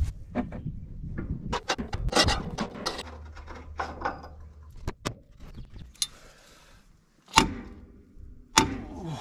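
Hand tools clinking and knocking against the steel of a motor grader while bolts and parts are worked loose, a string of small metallic clicks with two louder knocks near the end.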